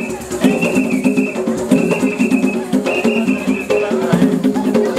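Lively dance music with a rattling shaker and drums, a high held note coming back about once a second over a steady beat.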